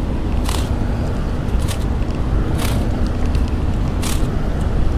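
Wind buffeting the camera's microphone, a steady loud rumble, with short hissy bursts about once a second.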